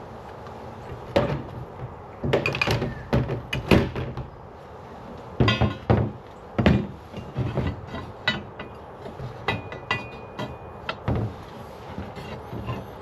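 Steel angle pieces clanking and knocking as they are set down and arranged on a work surface. Irregular knocks come in clusters, some leaving a brief metallic ring.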